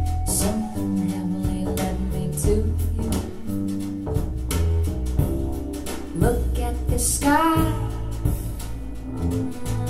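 Music: a song with a strong bass line, guitar and a steady beat, with a singing voice coming in about seven seconds in.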